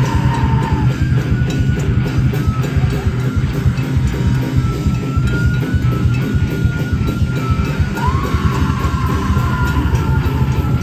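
Live heavy metal band playing loud: distorted electric guitars and bass over fast drumming on a drum kit. A high held note sounds near the start and comes in again about eight seconds in.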